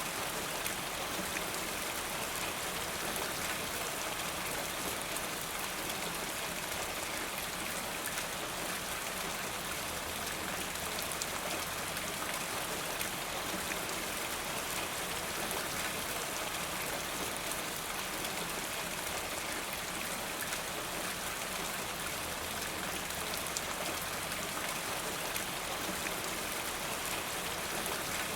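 Steady rain falling, with many separate drops ticking on hard surfaces and water running off a rain gutter.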